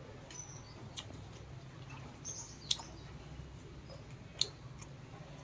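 A man chewing a mouthful of chicken biryani, with soft mouth and lip-smacking sounds and three sharp clicks about a second and a half apart, plus a few faint high chirps.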